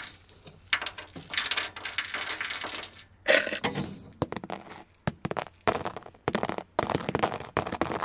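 A handful of small plastic blade fuses clattering and scraping on a painted metal floor plate as they are tipped out and pushed around by hand, in several rattling stretches with sharp clicks.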